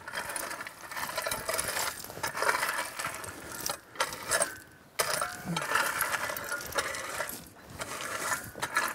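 Rake dragging and spreading crushed-stone sub-base: repeated gravelly scraping and clinking strokes, with short pauses between them.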